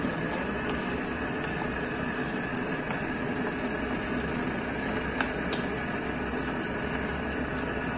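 Steady hum and sizzle of a pan of chicken stew cooking on an induction cooktop, with a wooden spatula stirring through it and one light tap against the pan about five seconds in.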